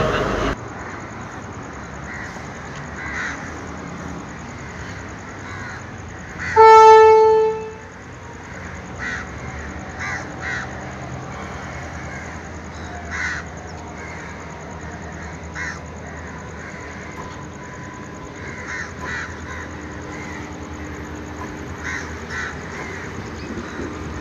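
A train horn gives one loud blast of a little over a second, about a quarter of the way in. Crows caw on and off throughout over the low rumble of a diesel train, which grows toward the end as the coaches run past.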